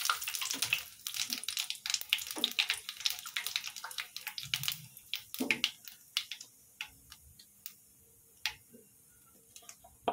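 Nigella seeds and dried red chillies spluttering and sizzling in hot oil in a kadai as a Bengali tempering (phoron). A dense crackle for the first half, thinning to scattered pops and then quieting toward the end as the spices settle in the oil.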